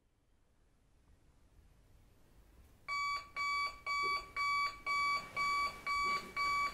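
Digital alarm clock beeping, about two short high-pitched beeps a second, starting about three seconds in.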